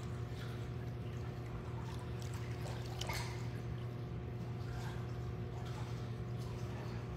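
Churning water in a swim spa as a swimmer strokes against the current, with soft splashes over a steady low hum.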